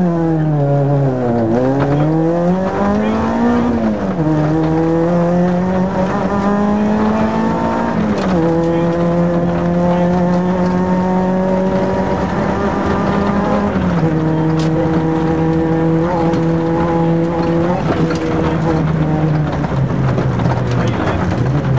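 Renault Clio Williams rally car's 2.0-litre 16-valve four-cylinder engine, heard from inside the cabin, pulling hard away from a stage start and accelerating through the gears. Its pitch climbs and then drops at each upshift, about 4, 8 and 14 seconds in, then holds a steadier note until a last drop near the end.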